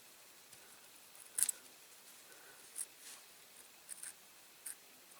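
Small sharp clicks and taps of small parts and tools being handled at a workbench, about six in all, the loudest about a second and a half in.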